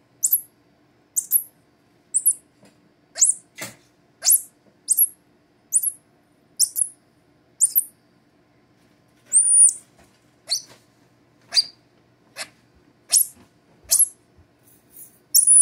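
Infant squirrel monkeys giving short, very high-pitched peeps about once a second, a couple of them drawn out longer: excited calling while waiting to be fed.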